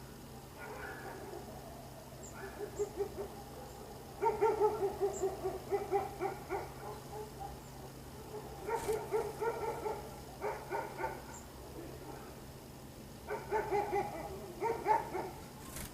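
An animal's low calls in three bouts of rapid pulses, each bout about two seconds long.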